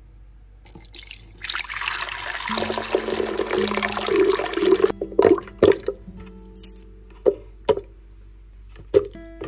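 Liquid pouring into a container in a steady stream for about three and a half seconds, then stopping, followed by a handful of single drips.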